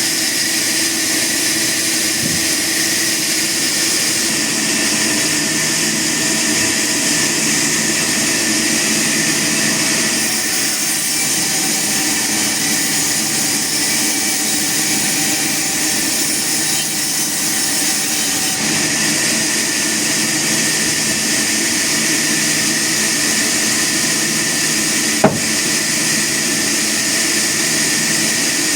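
Sawmill machinery running steadily: a constant mechanical whine and hiss that holds the same level throughout, with a single sharp click about 25 seconds in.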